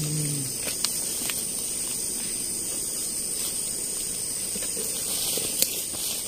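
Steady high hiss of a tropical forest insect chorus, with a constant high whine over it. A few light clicks come through, about a second in and again near the end.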